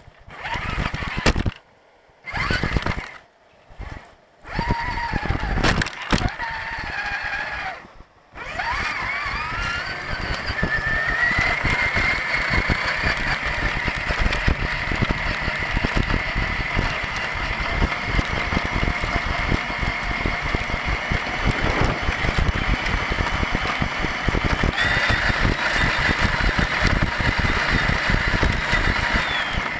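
Electric motor and drivetrain whine of an Axial Deadbolt 1/10-scale RC crawler, heard from the camera on its body. The first eight seconds are several short stop-start throttle bursts; after that it drives steadily, the whine rising in pitch and holding, then stepping up again near the end, over the rough rumble of the tyres on the ground.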